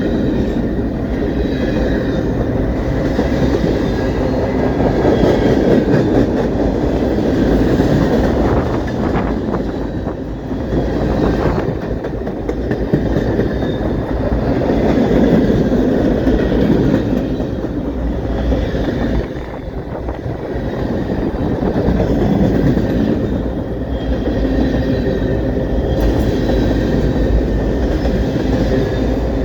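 A Canadian Pacific train's cars rolling steadily past on the track, with no horn sounding.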